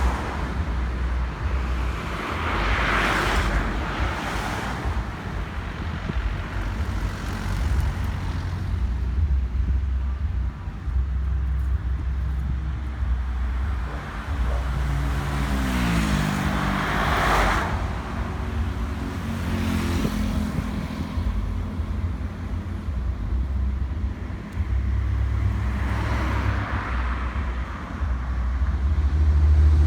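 Road traffic: vehicles passing three times over a steady low rumble, with an engine note falling in pitch about halfway through.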